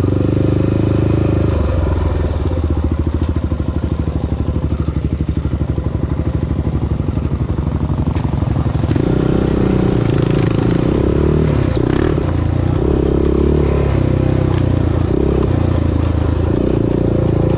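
Honda TRX400EX ATV's single-cylinder four-stroke engine under way. It chugs at low revs for several seconds, then from about halfway through revs up and drops back again and again as the throttle is worked.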